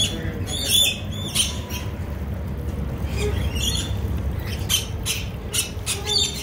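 Rainbow lorikeets screeching: a string of short, shrill calls in quick succession, over a steady low rumble.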